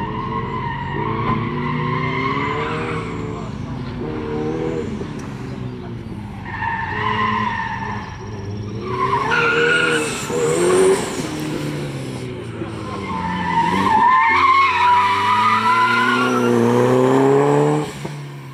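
1987 Shelby GLHS's turbocharged 2.2-litre four-cylinder revving up and down as the car is driven hard through an autocross course, with the tires squealing in several corners. It is loudest in the second half, then fades quickly near the end as the car moves away.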